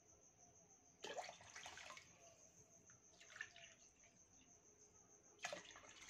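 Water poured from a plastic jug into a small plastic cup and from the cup into a rice cooker's pot of rice and milk. The pours are faint and splashy: a longer one about a second in, a short one near the middle and another near the end, over a faint steady high whine.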